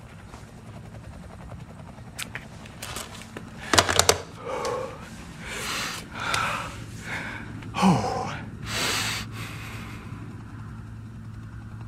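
A few clicks and a sharp knock about four seconds in, then a man's heavy, gasping breaths with a short falling moan, over a low steady hum.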